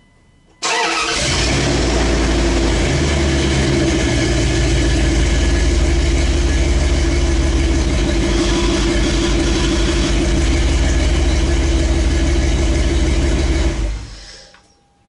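Dodge Ram pickup's engine starting about half a second in and running steadily while the hydraulic power steering is turned against the stuck front wheel bearing hub to press it out. It shuts off and fades out near the end.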